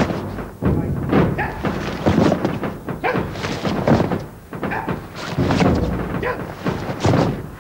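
A squad's boots stamping on tarmac during foot drill: a string of irregular thuds.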